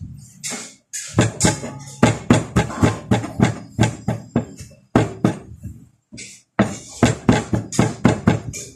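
Cleaver chopping cooked pork on a cutting board, a quick run of sharp knocks about three a second, with short pauses between bursts of strokes.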